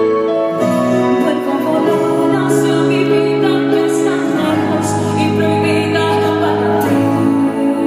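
A woman singing a slow ballad live into a microphone, backed by a band with acoustic guitar and keyboards, with long held notes over a steady bass.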